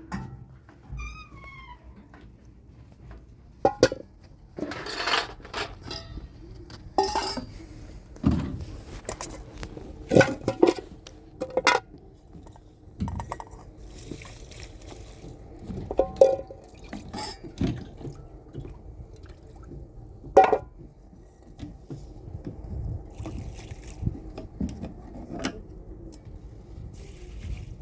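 Water splashing and pouring, with scattered sharp knocks and clatters of household things being handled.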